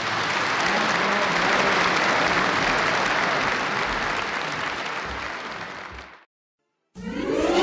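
Audience applause after a song ends, fading out about six seconds in. A brief silence follows, then music begins near the end.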